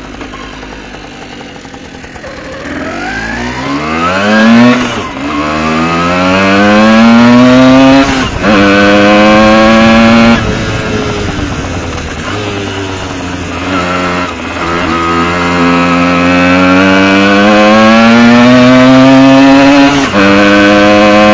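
Tomos ATX moped's small two-stroke engine, with a Dellorto 19 PHBG carburettor, pulling hard under way. It revs up repeatedly, each rise in pitch broken by a sudden short drop to a lower pitch, and runs high and loud near the end.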